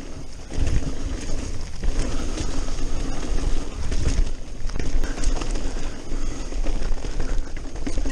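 Mountain bike riding fast down a dirt forest trail, heard from a camera on the bike: tyres rolling and crunching over the dirt, the bike rattling over bumps, and wind buffeting the microphone.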